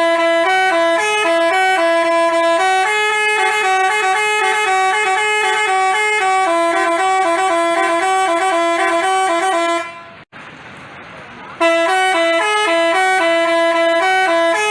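Basuri-type telolet multi-tone horn playing a quick stepping tune of held notes. It breaks off for about a second and a half about ten seconds in, then starts the tune again.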